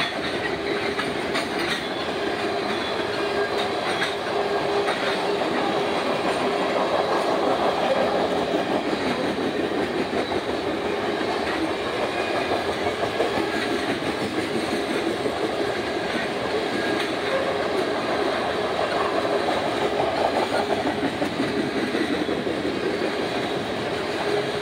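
Norfolk Southern manifest freight train's tank cars rolling past: a steady rumble and rattle of steel wheels on the rails, with clickety-clack over the rail joints.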